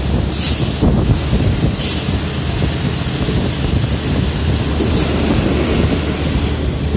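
Moving train heard from on board: a steady low rumble of the wheels on the track with wind rushing past, and short hissing bursts about half a second in, near two seconds and near five seconds.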